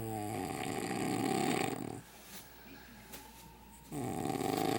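A man snoring through his open mouth, a deep rattling snore that sounds like a bullfrog: one long snore of about two seconds at the start, then another beginning near the end.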